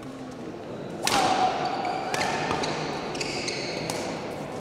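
Badminton play on an indoor court: one sharp racket hit about a second in, with a brief ringing after it, followed by several short high squeaks typical of court shoes on the floor.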